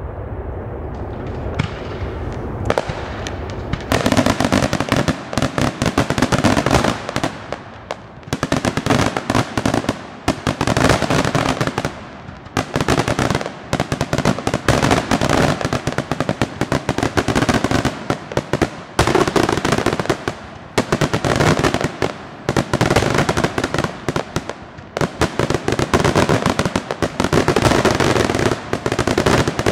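Daylight fireworks: aerial shells bursting into dense, rapid crackling of many small reports. A few separate bangs come first, and from about four seconds in the crackling arrives in loud waves every two to three seconds.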